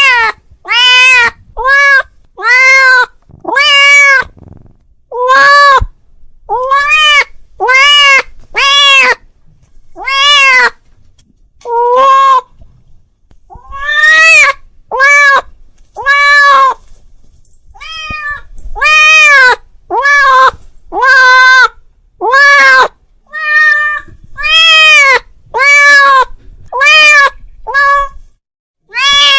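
A cat meowing over and over, about one call a second, each meow rising and falling in pitch: a cat calling out to another cat. The calls pause briefly about halfway through, then carry on.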